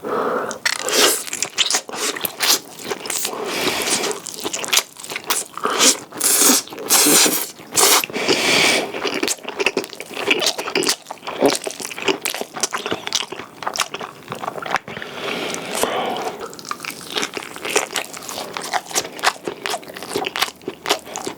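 Close-miked eating: a person biting and chewing food, with a dense run of small sharp clicks and crackles from the mouth.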